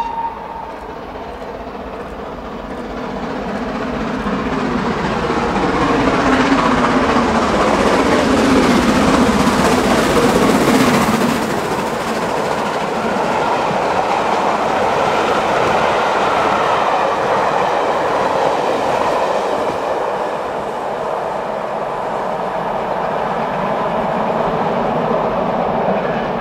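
Steam-hauled mainline train passing close by: the sound builds as the locomotive approaches and goes past about ten seconds in, its pitch falling as it passes, then the coaches follow with a steady clatter of wheels over rail joints.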